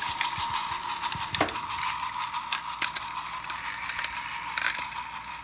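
Several battery-powered motorized Thomas toy engines running together, their small electric motors and gears giving a steady high whir, with a few light clicks.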